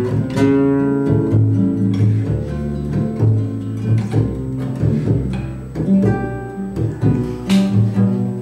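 Samba-canção played on a plucked upright double bass and a classical acoustic guitar, with male voices singing over the steady bass line.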